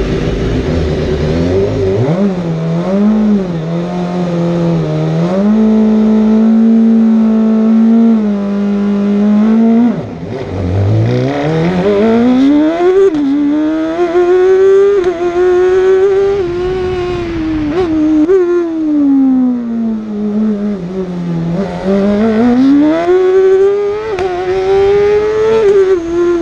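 Osella PA21 JRB race car's BMW engine heard onboard. It holds steady revs for about two seconds, then pulls away and revs hard, its pitch rising and falling again and again. About ten seconds in the revs drop sharply, then climb again from low.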